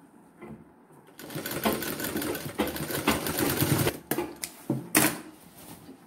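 Sewing machine stitching a seam in a fast run of about three seconds, then a few separate clicks and one more short burst of stitching about five seconds in, as the seam is finished.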